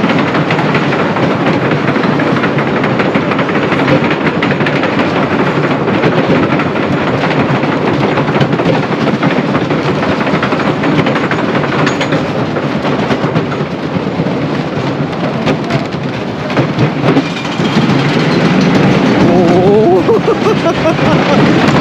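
Wooden roller coaster train of the 1920 Scenic Railway running along its track: a loud, continuous rumble and clatter of the cars over the wooden structure, mixed with wind rushing past. Rising cries from riders come in over it near the end.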